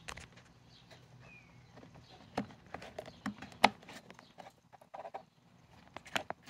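Scattered small clicks and knocks of hands working plastic parts: the fuel lines going onto a new primer bulb and the bulb pressed into place on a backpack leaf blower. The sharpest knock comes about three and a half seconds in.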